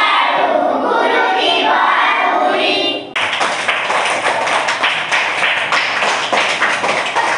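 Young girls singing together in Odia, ending the song about three seconds in; hands clapping in applause for the rest.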